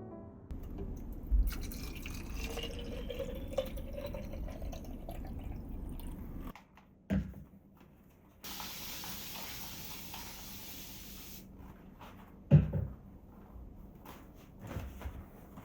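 Kitchen tap water running into a container, its tone rising as it fills, then a few seconds of hissing spray. Three knocks of things being handled sound among the water, the loudest near the end.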